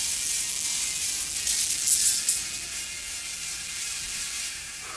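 Anime fight sound effects: a harsh, hissing, grinding noise with rattling flares, loudest about two seconds in, then fading toward the end.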